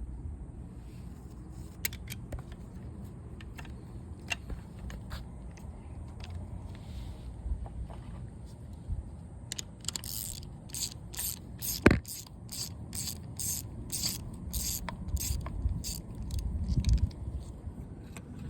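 Hand tools working the bolts of a motorcycle crankcase: scattered metal clicks and scrapes, then a quick run of ratchet-wrench clicks about halfway through, with one sharp knock in the middle of it.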